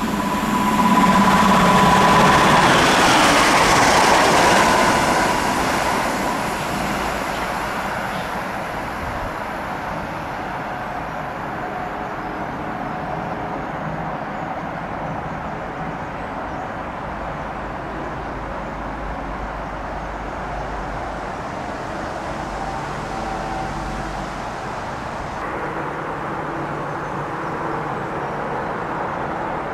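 A train passing, loudest in the first few seconds with a steady high tone near the start, then fading to a steady rumble.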